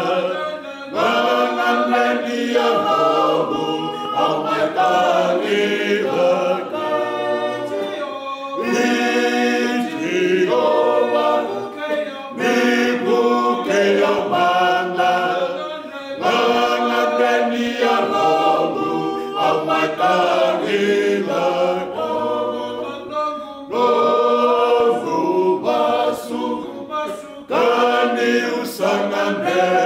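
Men's choir singing a Fijian hymn a cappella, many voices together in sung phrases a few seconds long with short breaths between them.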